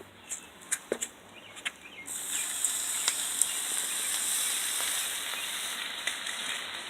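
Water poured onto burning laptop parts, hissing steadily as it steams off the hot plastic and metal, starting about two seconds in after a few light clicks and taps.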